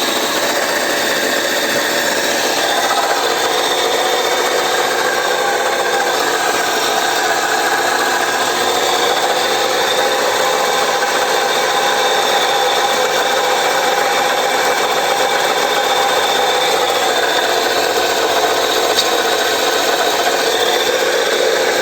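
Alternator of a 2015 Chevrolet Cruze 1.6 droning steadily with the engine running, a dense whirring noise with several faint whining tones: the alternator bearing is worn.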